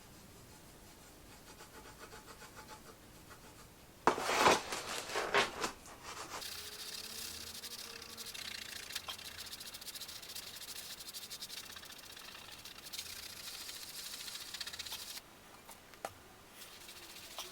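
Cloth with T-cut polishing compound being rubbed by hand over a painted metal switch plate to take off paint that bled under the masking tape. Faint quick strokes at first, a louder scuffling burst about four seconds in, then steady rubbing that stops suddenly about fifteen seconds in.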